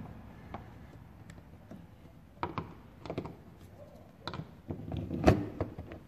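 Plastic trim-removal tools clicking and knocking against a car's plastic fuel-filler door housing as it is pried out of the body. There are a few scattered clicks and one loud sharp clack about five seconds in.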